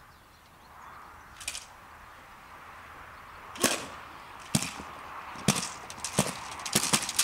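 A series of sharp, short cracks: one faint crack, then six loud ones at about one a second, the last two close together.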